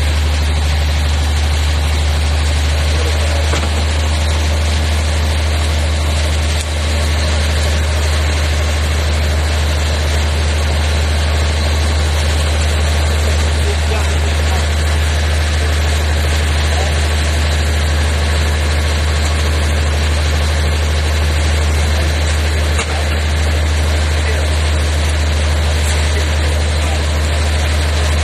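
Fishing boat's engine running at a steady low drone while underway, with water rushing past the hull.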